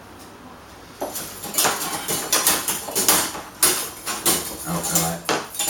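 Metal kitchen utensils clattering off camera: a quick, irregular run of sharp knocks and scrapes that starts about a second in.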